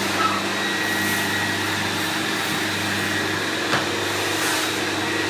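Electric floor-restoration machine running steadily: a motor hum with a thin high whine above it.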